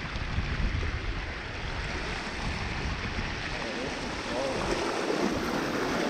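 Shallow creek water rushing over rocks in a riffle, a steady watery hiss. Wind buffets the microphone through the first half and dies down after about three seconds.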